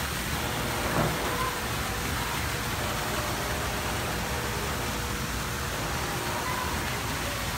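Bumper boat's motor running steadily with water rushing and splashing around it, and a short knock about a second in.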